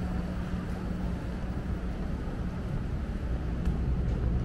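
A steady low mechanical hum and rumble, with a constant drone under a wash of noise and a couple of faint clicks.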